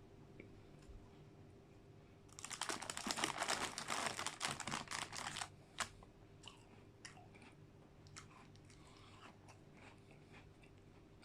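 Close-miked chewing of crunchy digestive biscuit mixed into ice cream. A dense spell of crunching runs from about two to five and a half seconds in, then quieter, scattered chews follow.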